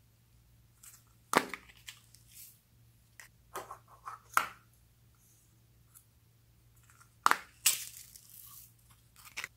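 Foam-bead squishy stress balls being torn open and their small foam beads tipped into a bowl of clear slime: sharp crackling tears and rustles in several short bursts with quiet gaps between.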